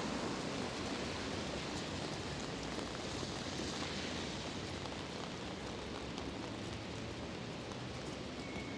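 Pouring rain, a steady even hiss.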